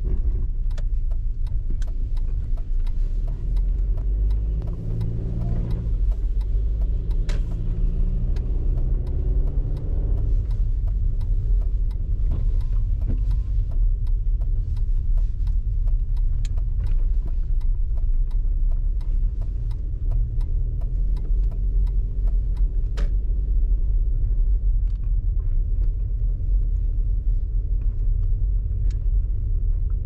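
Car driving on snow-covered roads: a steady low rumble of engine and tyres, with an engine note coming up for a few seconds between about four and ten seconds in, and scattered light clicks throughout.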